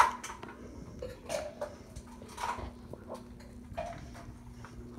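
A wolfdog eating from a bowl on the floor: irregular chewing and mouth sounds about once a second, with a sharp knock right at the start. A faint steady hum runs underneath.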